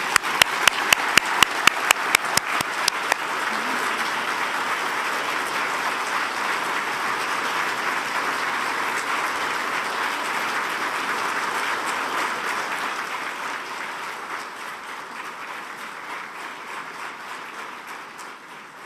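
A large audience applauding. In the first three seconds a few loud, sharp claps stand out close to the microphone, and the applause tapers off over the last few seconds.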